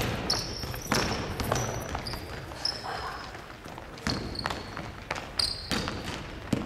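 A basketball is bounced several times on a hardwood gym floor, with short high squeaks of sneakers on the court in between.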